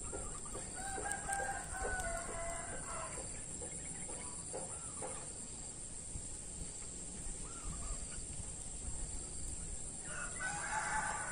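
A rooster crowing twice: one drawn-out crow about a second in, and another starting near the end.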